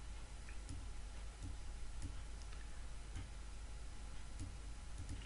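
Faint computer mouse clicks, a scattered handful at irregular intervals, over a low steady hum and hiss.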